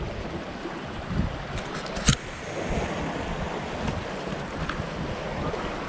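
Wind buffeting the microphone over open water, with waves splashing, and a single sharp knock about two seconds in.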